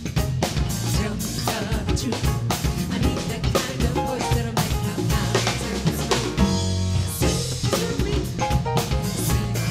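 Live gospel band playing a song on a drum kit with kick drum, snare and cymbals keeping a steady beat, over electric bass and piano.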